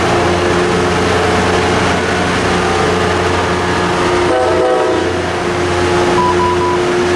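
Tri-Rail commuter train's diesel locomotive running steadily with a low hum while the train stands at the platform. About four seconds in, a short horn-like chord sounds, and near the end there are three short beeps.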